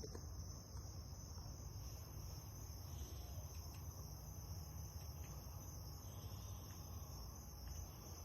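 Insect chorus, crickets chirping steadily in a high, even band, over a low steady hum.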